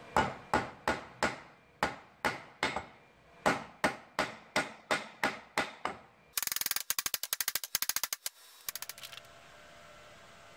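Hammer tapping on a workpiece: about fifteen sharp blows at roughly three a second, each ringing briefly. Then a rapid rattle of clicks for about two seconds, and a few last clicks.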